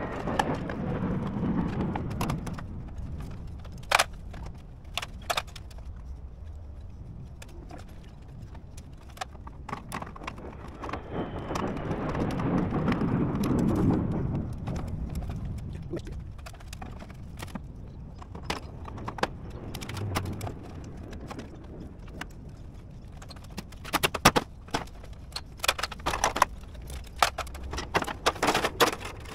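Scattered knocks and clicks of a metal gutter and its downpipe elbow being worked loose from the roof edge, coming thick and fast in the last few seconds. A broad rushing sound swells and fades around the middle.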